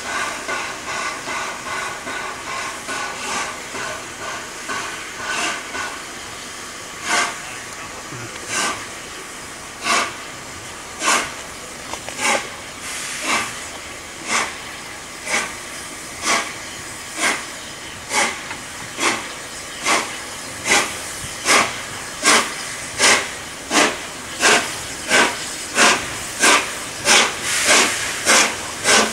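Peppercorn A1 Pacific steam locomotive Tornado pulling away: a steady steam hiss at first, then sharp exhaust beats about a second apart that steadily quicken to two or three a second as it gathers speed.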